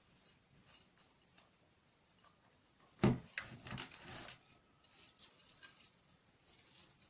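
Faint rustling of kalanchoe leaves and stems and crumbling potting soil as the plants are handled out of their pot, with one sharp knock about three seconds in followed by a few louder rustles.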